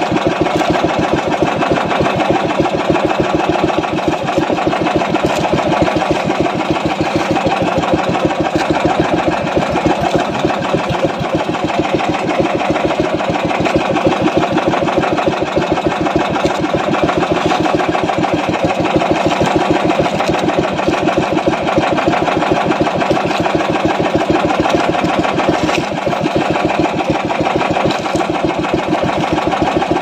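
A small engine running steadily at an even pace, with a fast regular beat.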